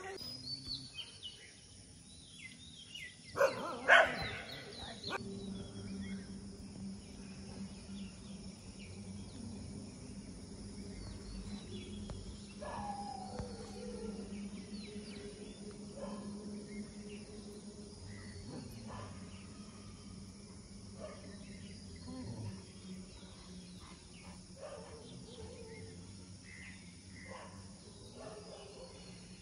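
Free-roaming dogs barking and yelping as they chase each other: two loud barks about three and a half to four seconds in, then scattered fainter yelps over a steady low hum.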